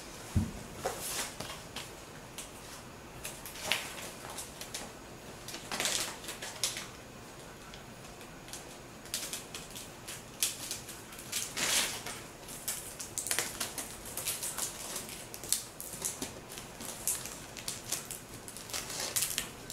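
Paper sheets and a thin silvery reflective sheet being handled, peeled and pressed flat on a table: irregular rustling and crinkling in short crackles.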